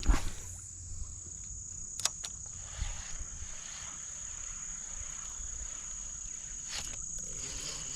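A steady high-pitched insect trill, with a few sharp clicks about two seconds in and again near the end.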